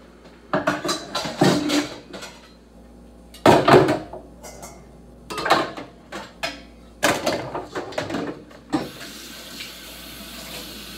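Water from a kitchen tap splashing into a sink in several loud bursts, then running steadily for the last couple of seconds.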